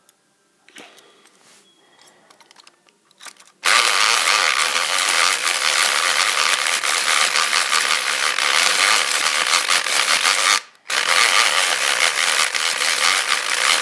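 Electric pick gun converted from a Black & Decker electric screwdriver, its motor running and its pick rattling against the pins inside a padlock. It starts a few seconds in after some light clicks, cuts out briefly near the end, then runs again.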